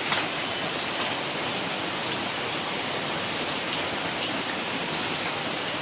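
Steady, even rush of water, unbroken throughout.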